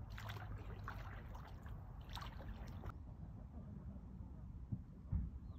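A stand-up paddleboard paddle dipping and pulling through calm lake water: a few soft splashes and drips in the first half, then quieter, over a low steady rumble, with a soft low thump near the end.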